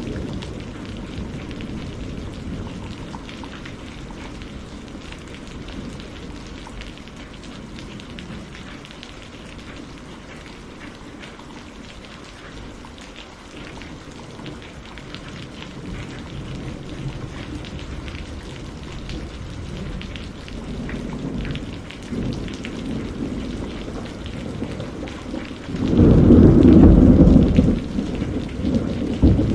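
Steady rain falling with a fine patter, under low rolls of thunder. A loud thunder rumble breaks in about 26 seconds in and lasts about two seconds, with another low rumble near the end.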